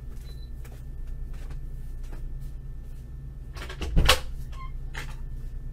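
A sharp knock or thump about four seconds in, with a few lighter clicks before and after, over a steady low hum.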